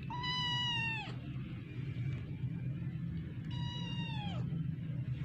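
Kitten meowing twice: two high, drawn-out calls about a second long, each dropping in pitch at the end, the second about three seconds after the first, over a steady low hum.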